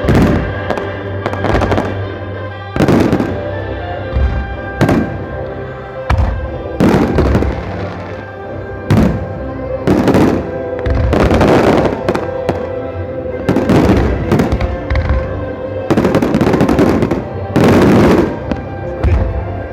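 Fireworks shells bursting in quick succession, a loud bang every second or two, each with a short echoing tail, over music playing throughout.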